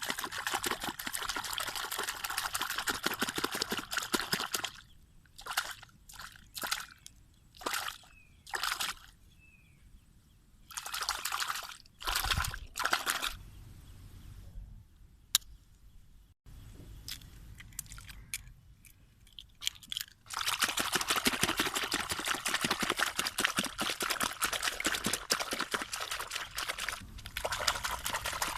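Water pouring and sloshing in bursts: a long pour at the start, a run of short splashes in the middle, and another long pour near the end.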